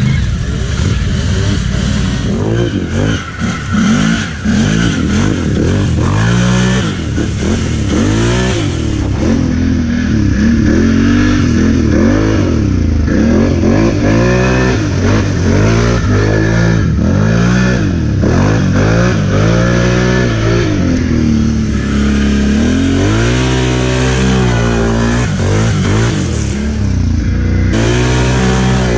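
ATV engine revving up and down over and over, the pitch rising and falling every second or two.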